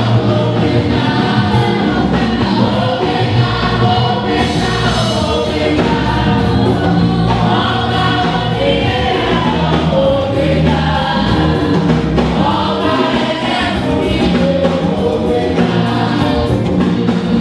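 Church choir singing a gospel song with band accompaniment: a strong bass line and a steady percussive beat under the voices.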